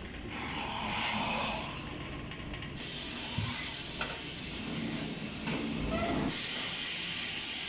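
Compressed air hissing steadily from about three seconds in, with a short break about six seconds in.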